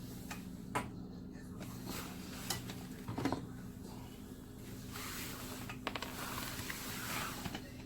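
Scattered sharp clicks and knocks, with rustling in the second half, from hands working on a dishwasher's control panel and its wiring connectors, over a steady low hum.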